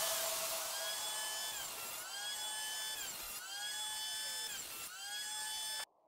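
Electric hand planer, mounted upside down as a jointer, running with a high whine that sags in pitch and recovers several times as it cuts along the edge of a board. The sound stops abruptly near the end.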